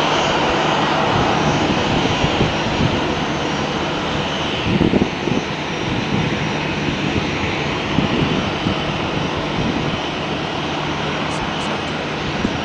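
Boeing P-8A Poseidon's twin CFM56-7 turbofan engines running at taxi power as the jet rolls along the runway: a steady whine over a broad rushing hiss. Brief low rumbles come about five and eight seconds in.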